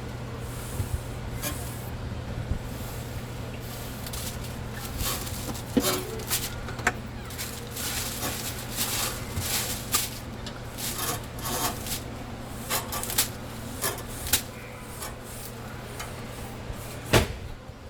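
Rubbing and scraping strokes while the condenser coils of a large refrigerator are cleaned, irregular and repeated, with a louder stroke near the end. Underneath runs a steady low hum.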